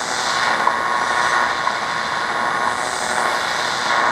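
WWV shortwave time signal received on a RadioShack DX-397 portable receiver through its speaker: a steady tone in static and hiss, marked by a short tick once a second. The tone comes in shortly after the start as the station is tuned in.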